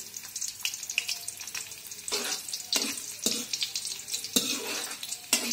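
Black raisins sizzling in hot ghee in a metal kadai, a spoon now and then scraping the pan as they are stirred. The raisins are being fried until they puff up.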